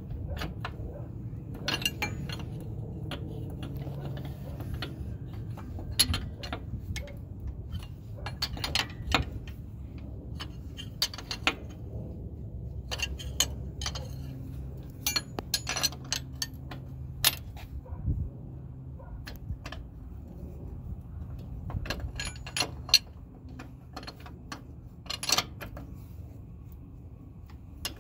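Steel wrenches clinking against each other and against a hydraulic line fitting as they are fitted and turned, in scattered sharp metallic clicks over a low steady background rumble.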